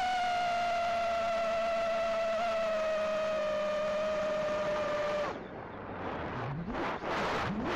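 Brushless motors and 2.5-inch tri-blade props of a Happymodel Larva X HD micro FPV quadcopter, heard through its onboard camera: a steady high whine slowly sinking in pitch, which cuts off about five seconds in, followed by a few short revs rising in pitch.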